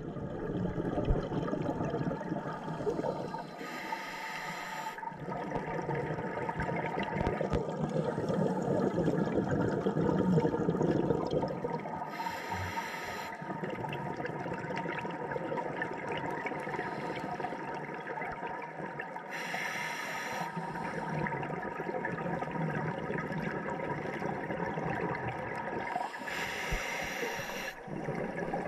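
Scuba diver breathing underwater through a regulator: four bursts of exhaled bubbles about seven seconds apart, over a steady underwater rush of noise.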